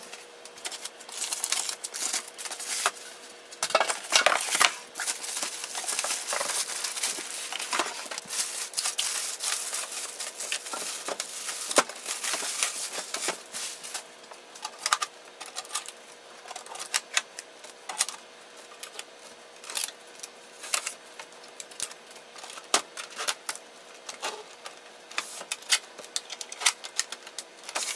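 Printer being unboxed by hand: cardboard box and packing material rustling, with many small clicks, knocks and rattles as the printer is lifted out, plus a faint steady hum underneath.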